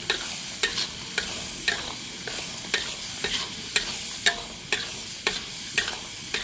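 Chopped tomatoes sizzling in hot oil in a pan while a spatula stirs them, scraping and knocking against the pan about twice a second.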